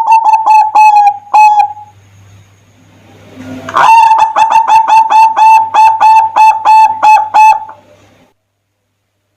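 Zebra dove (perkutut) singing: runs of quick, repeated cooing notes, about three to four a second. One phrase ends about two seconds in and a second phrase comes in around four seconds and stops about eight seconds in.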